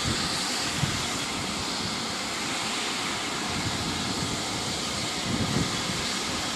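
Steam locomotive standing at a station with steam venting in a steady hiss, with low wind rumble on the microphone now and then.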